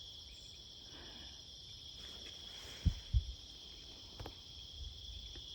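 Steady high-pitched chorus of crickets or other insects. Two short, dull low thumps about three seconds in, a quarter of a second apart.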